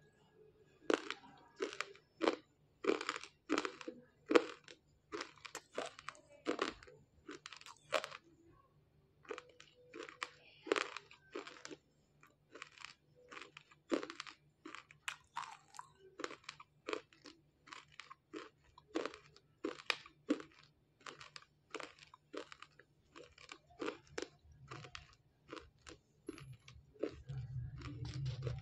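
Close-up chewing of a hard piece of roasted multani mitti (fuller's earth clay): a steady run of crisp crunches, about two a second. A low hum comes in near the end.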